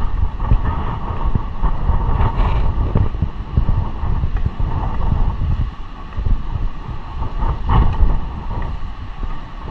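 Wind buffeting the microphone in uneven gusts, swelling and dropping throughout.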